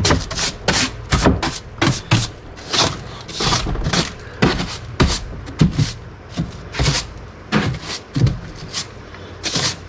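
Stiff-bristled hand brush scrubbing and sweeping dirt off the bare floor of a golf cart in quick, irregular strokes, with an occasional knock.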